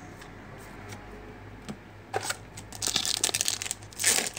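Topps Premier Gold football trading cards being flipped through by hand. It is faint at first, then from about two seconds in there is a run of snaps and crinkly sliding as cards are pushed past one another, loudest near the end.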